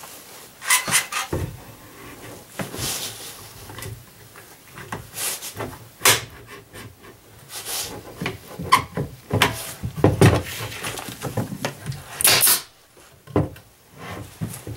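Irregular knocks, clicks and short rustles of hand work as a clamp is fitted onto a small wooden box on a tabletop, with one louder hissy burst near the end.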